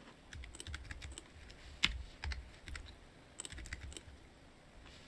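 Computer keyboard keys pressed in short, irregular clicks, about a dozen of them, the loudest about two seconds in, as shortcuts are typed.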